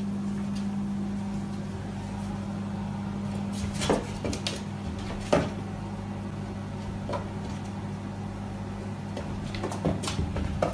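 A steady low hum with a few light, sharp taps, about four, five and ten seconds in.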